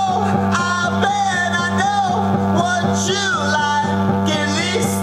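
A rock song with singing, guitar and a steady beat, playing through the Supertooth Disco Bluetooth speaker.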